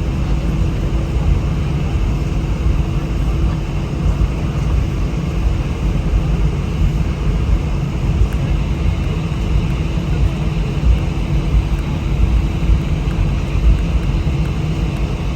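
Steady cabin noise inside an Airbus A319 airliner while it taxis: a low rumble with a constant hum from the jet engines running at low power.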